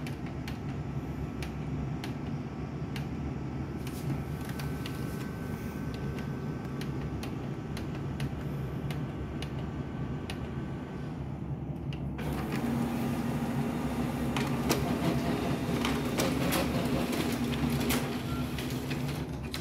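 HP LaserJet laser printer running with a steady hum; about twelve seconds in its print mechanism starts, feeding and printing a page with a louder, steady whirr and many small clicks until the sheet comes out near the end.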